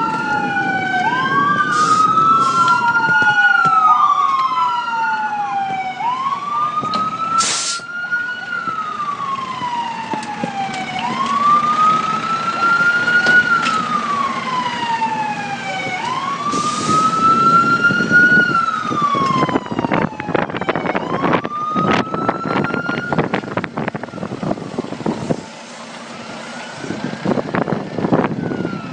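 Fire engine sirens wailing, each cycle rising quickly and falling slowly, two sirens overlapping at first and then one. From about two-thirds of the way in, a series of sharp cracks and knocks sounds over a fainter siren.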